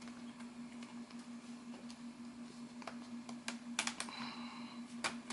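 Light clicks and taps of plastic parts being handled as the opened Samsung ATIV Smart PC Pro 700T tablet's housing is lifted apart. The clicks are scattered and bunch up in the second half, over a steady low hum.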